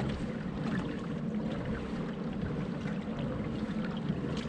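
Water trickling and splashing around a kayak: a steady, even wash of noise.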